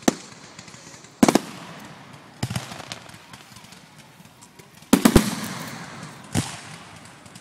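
Aerial fireworks bursting: sharp bangs every second or two, with a quick cluster of several bangs about five seconds in and faint crackling between.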